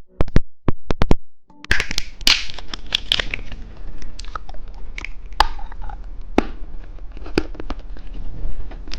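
Plastic candy packaging being handled and opened to unwrap a lollipop: a few sharp clicks and snaps, then continuous crinkling and tearing of the plastic with scattered clicks.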